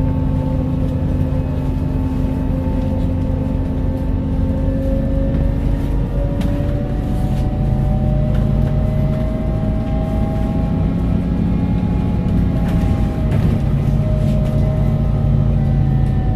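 Volvo B5TL double-deck bus running, its engine giving a steady low drone, with a whine that slowly rises in pitch and then falls back, and a few light rattles.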